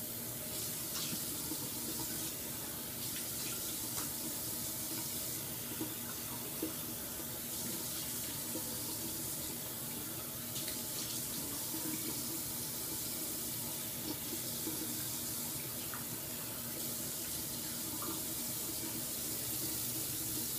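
Bathroom sink tap running steadily while the face is rinsed after shaving, with a few faint clicks and knocks.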